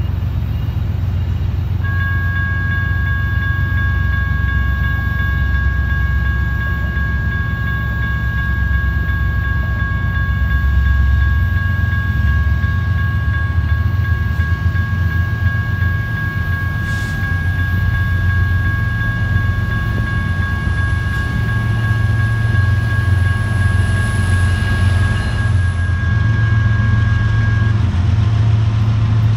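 Railroad crossing warning bell ringing as the crossing lights flash and the gates lower. It starts about two seconds in and stops near the end once the gates are down, over a steady low rumble.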